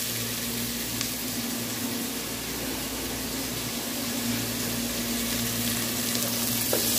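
Onion, tomato and garlic sizzling steadily in oil in an aluminium pot over a gas burner, heard as an even hiss with a steady low hum beneath.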